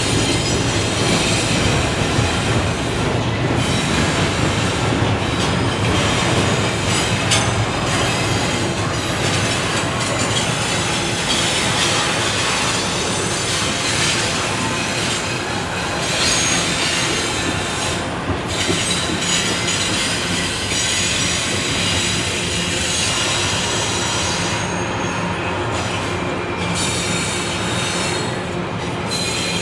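Double-stack intermodal container train rolling past at a steady pace: a continuous rumble and clatter of well-car wheels on the rails, with thin high-pitched wheel squeal over it.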